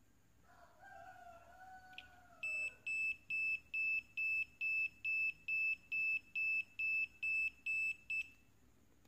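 The tester board's piezo buzzer beeps repeatedly at one high pitch, about fourteen even beeps at roughly two and a half a second, after a click. The NE555 under test is oscillating, which on this tester means the chip is good.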